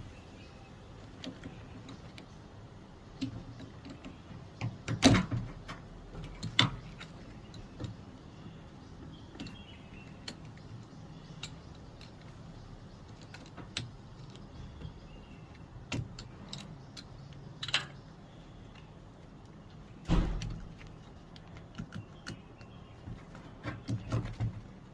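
Scattered clicks, clatters and knocks of hands handling parts while removing and fitting a Samsung washing machine's water inlet solenoid valve. The two loudest knocks come about five and twenty seconds in, over a faint low hum.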